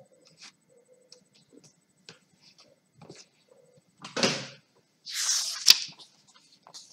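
Paper rustle of a book page being turned by hand: faint small ticks of handling, then a loud swish about four seconds in and a longer one about a second later ending in a crisp snap of the page.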